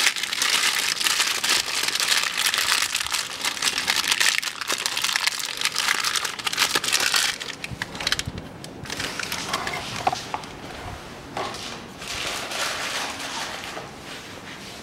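Clear plastic bag crinkling and crackling as it is pulled off a new timing-belt tensioner roller by hand. It is loud and dense for about seven seconds, then gives way to quieter handling noise with a few light clicks.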